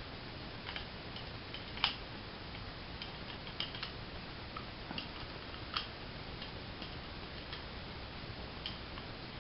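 Irregular small metallic clicks and taps of Mossberg 500 shotgun parts and a T-wrench being handled and fitted during reassembly, over a faint steady hiss. The two sharpest clicks come about two and six seconds in.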